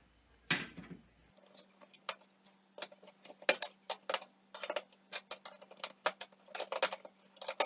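Handling noise from a fluorescent light fixture being reassembled: many irregular light clicks and taps of its parts being fitted and moved, after a short scrape about half a second in.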